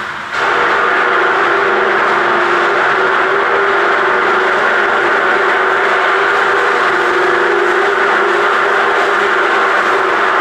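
A machine running steadily, a loud even mechanical noise with a constant hum in it, starting abruptly just after the beginning.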